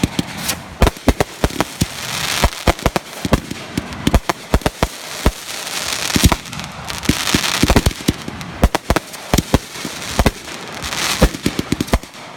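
Fireworks going off in a dense barrage: many sharp, irregular bangs with hissing, crackling stretches between them.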